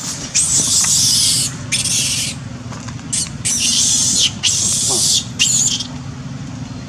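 Young long-tailed macaque screaming in distress after being chased and bitten by a bigger monkey: a string of about six shrill, high screams, the longest about a second, over a steady low hum.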